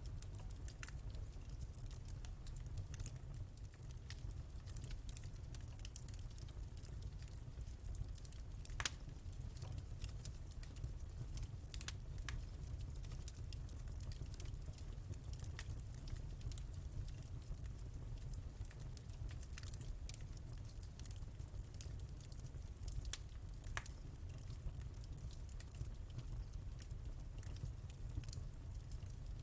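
Wood fire crackling in a fireplace: a steady low rumble of flame with irregular small pops and snaps throughout. A sharper pop comes about nine seconds in, and another at about twelve seconds.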